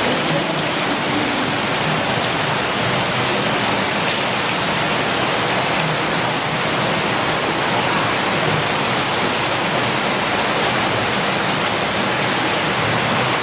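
Steady rush of running and falling water in an underground cave streamway, an even hiss with no breaks.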